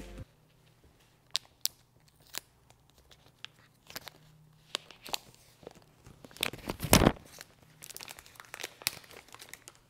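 Plastic shrink wrap being peeled and torn off a smartphone box: scattered crinkles and crackles, with the loudest tearing rustle about seven seconds in.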